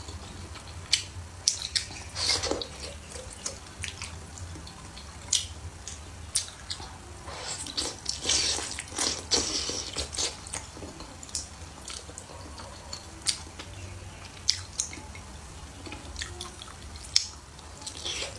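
Close-miked eating of pork wontons in chili-oil broth: wet mouth clicks and chewing throughout, with longer breathy slurps about two seconds in and again around eight to ten seconds in.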